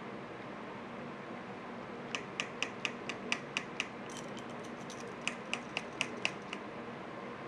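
Two runs of quick, sharp taps, about four or five a second, from a kitchen utensil, over a steady background hiss; the first run lasts nearly two seconds, then a brief flurry of fainter taps, then a second run of about a second.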